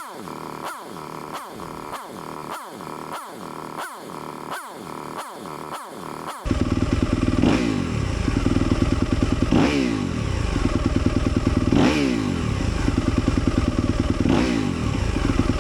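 2023 Yamaha YZ250FX single-cylinder four-stroke engine in neutral, blipped over and over and allowed to drop back to idle between revs, to break in new Rekluse EXP disk wedge pads. For the first six seconds it is quieter, with about ten quick falling sweeps. Then it jumps louder and idles with a rev about every two seconds.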